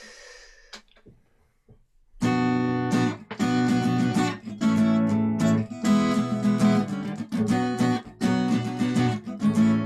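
Guitar instrumental starting about two seconds in: ringing chords and picked notes with short breaks between phrases, picked up by a computer's built-in microphone.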